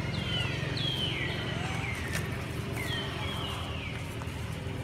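Birds calling: short whistled notes that fall in pitch, in runs of two or three, over a steady low hum.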